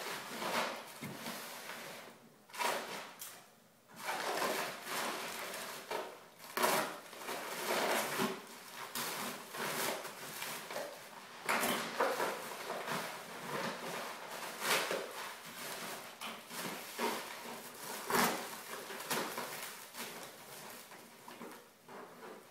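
Irregular rustling, crinkling and scuffing of packaging (packing paper, plastic wrap and cardboard) as items are handled and pulled out of a large cardboard shipping box.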